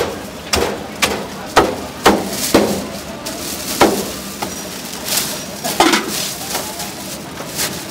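A knife chopping on a wooden cutting board: about a dozen sharp, uneven chops, mostly about two a second, with a short pause midway.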